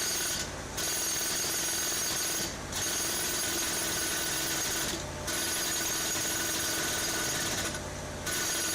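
Jackhammer hammering steadily, broken by four brief pauses of a fraction of a second, roughly every two and a half seconds.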